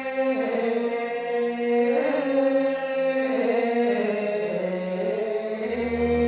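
Thai royal barge chant (he ruea): a voice holding long, slowly wavering notes. A low drone underneath drops out at the start and comes back near the end.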